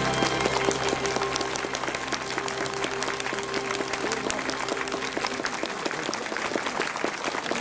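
Audience applauding with dense, steady clapping as a piece of music ends. The last low notes of the music die away in about the first second.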